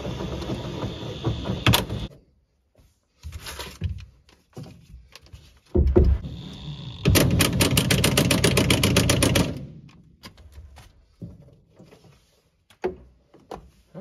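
Cordless impact driver, set to its lowest setting, running a seat-belt anchor bolt. It whirs in short spurts, then hammers rapidly for about two and a half seconds from about seven seconds in as the bolt tightens. A single knock comes just before that.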